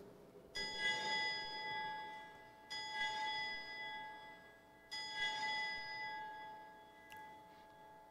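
Altar bells rung three times, about two seconds apart, each ring sounding several clear tones that fade away: the signal of the elevation of the consecrated host at Mass.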